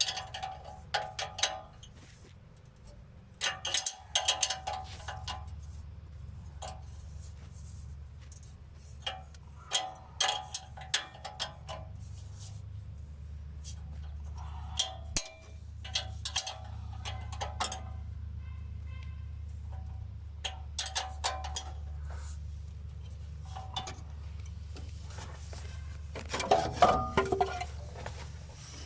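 Jeep Wrangler YJ engine idling through a newly fitted Walker muffler as a steady low hum, with repeated short clusters of clinking over it.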